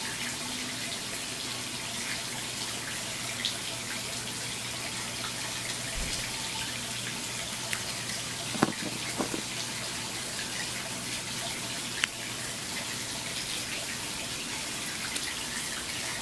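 A steady background hiss with a faint low hum. A few small sharp clicks, two close together around the middle and one a few seconds later, come from a small screwdriver prying the rubber seal off a grease-packed motorcycle wheel bearing.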